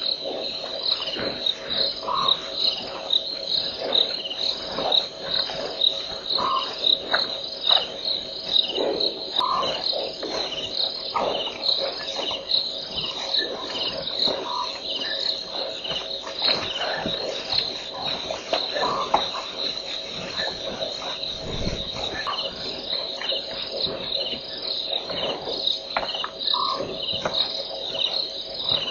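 Night insect chorus: a high chirping that pulses about once or twice a second without pause, over a steady lower drone, with short calls every few seconds and scattered faint clicks.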